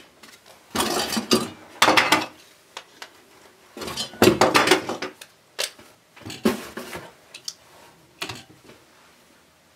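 Metal spring clamps clattering and clicking as they are picked up from a pile and clamped onto a stack of acetone-welded ABS plastic plates. The sound comes in several short bursts of rattles and snaps with pauses between.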